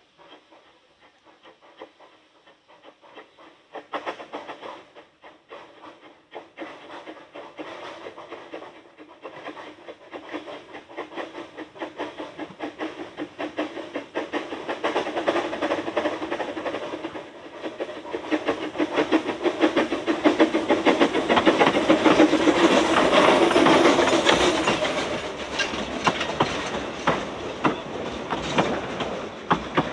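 Narrow-gauge steam locomotive hauling a rake of carriages approaches and passes, its rhythmic exhaust beats and the wheels clicking over rail joints growing louder, loudest a little over two-thirds of the way through, then the carriages rolling by.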